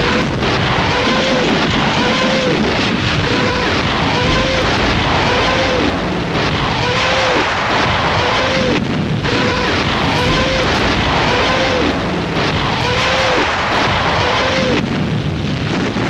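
Rocket artillery firing a barrage: a dense, continuous rumble of launches and blasts, with a rising-then-falling wail repeating about once a second and brief lulls now and then.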